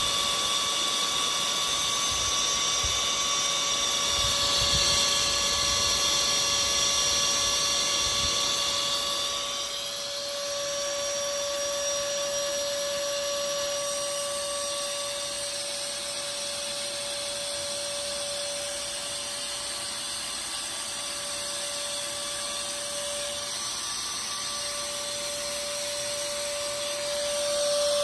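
Moore jig grinder's air-driven grinding head whining steadily at high speed while its wheel grinds a 440C steel ball spun on an air-bearing spindle. The grinding hiss is stronger for the first ten seconds, then eases while the whine keeps on, and swells again near the end.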